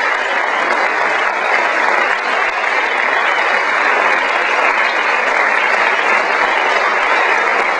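Audience applauding steadily, dense clapping with no breaks.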